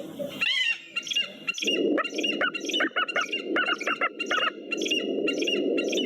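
A bird of prey calling in a rapid series of short, high-pitched calls, about three a second. A steady low background noise comes in about a second and a half in.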